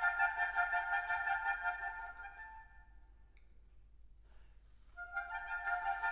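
Ten oboes playing fast repeated-note triplet figures in canon, a quickly pulsing chord that dies away about two and a half seconds in. After a pause of about two seconds the oboes come back in with the same pulsing figures.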